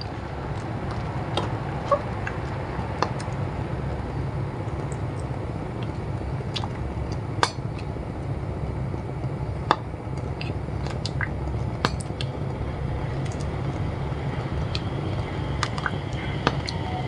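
Banana and coconut-milk kolak simmering in a clay pot over a steady low rumble, with scattered light clicks and taps as a silicone spatula stirs the pot.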